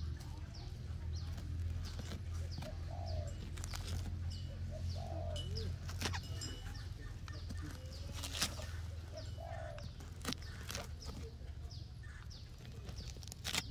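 Knife scraping and prying at rotten palm-trunk fibre, with a few sharp clicks and cracks. Birds call behind it: one low call repeats about every two seconds among quick high chirps, over a steady low hum.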